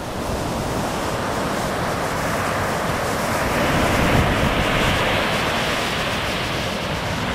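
Small ocean waves breaking and washing up the beach, a steady rush of surf that swells about three to five seconds in, with wind buffeting the microphone underneath.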